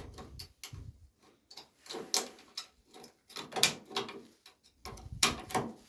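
Irregular light knocks and clicks, a few spread across the seconds, the kind made by handling metal and tools on a workbench.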